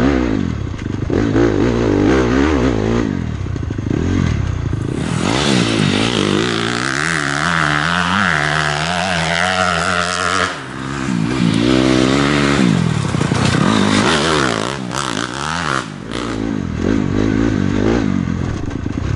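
Single-cylinder four-stroke Honda CRF250R dirt bike engine revving up and down through the throttle as it is ridden. About five seconds in the sound changes to a dirt bike engine from a different recording, and the first sound returns near the end.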